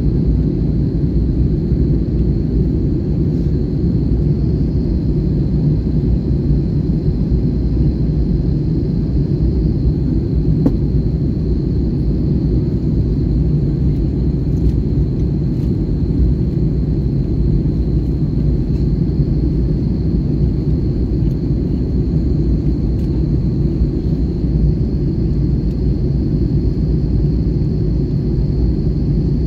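Steady low rumble of engine and airflow noise inside the cabin of an Airbus A321 airliner on its approach to land, with a faint steady high whine above it.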